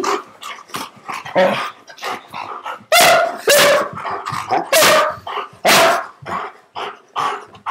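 Black German Shepherd barking at a person's teasing hand: short sharp barks, the loudest four coming in a run about three to six seconds in, with quieter ones between.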